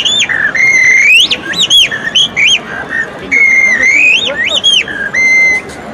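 A blackbird's song imitated on a small bird-call whistle pressed against the roof of the mouth with the tongue. It is a run of warbling whistled phrases sliding up and down, ending on a short held note.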